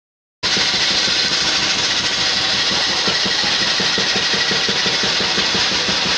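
A small engine running steadily with a fast, dense rattle. It cuts in abruptly after a short silence.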